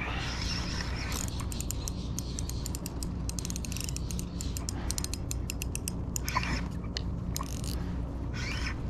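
Spinning fishing reel clicking irregularly while a hooked fish is fought, with a dense run of rapid clicks in the middle.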